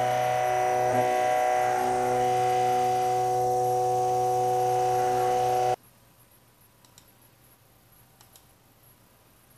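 Steady electric whine of several held tones from the torsion testing machine's motor, cutting off abruptly about six seconds in. Then near silence with a few faint clicks.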